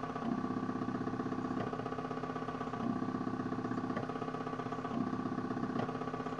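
Stepper motors of a Supercarver 1000 mW DIY laser engraver whining steadily as they drive the laser head back and forth while it engraves wood. The tone pattern shifts about every 1.3 seconds.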